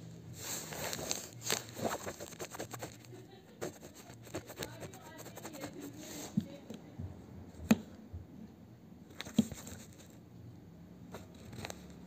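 Hands working a keypad circuit board loose from an induction cooker's plastic housing: scraping, rustling and small clicks of board and plastic, with two sharper clicks past the middle.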